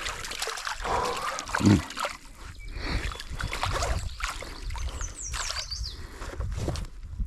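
Stream water splashing and sloshing irregularly around a landed trout held in the shallows. A few high bird chirps come a bit past the middle.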